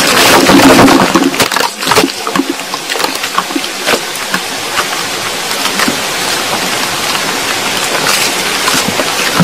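Soil trickling down and water running, picked up by a microphone about 5 m underground: a steady hiss dotted with small clicks and ticks, louder in the first couple of seconds. The recordist takes it for the sound of tunnel-digging work.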